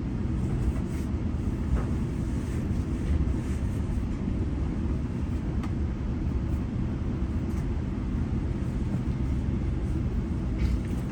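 Steady low rumble of a GO Transit commuter train heard from inside a passenger coach, with a few faint light ticks.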